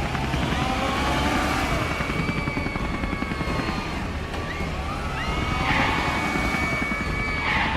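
Cartoon helicopter rotor chopping steadily, with rising and held siren-like tones over it as the rescue vehicles rush in.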